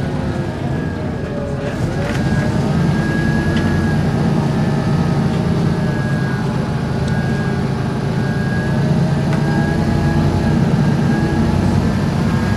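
Volvo B7RLE bus with a ZF gearbox running under way, its steady low engine sound overlaid by a wavering groaning whine that rises and falls. The groan appears as the bus accelerates and slows, and its cause is unknown; the recorder suspects an engine belt.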